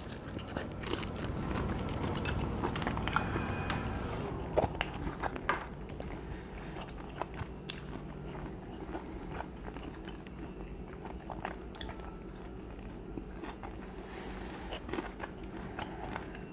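A person biting into and chewing a piece of chicken, with scattered small clicks and mouth noises; the chewing is loudest in the first few seconds after the bite, then quieter.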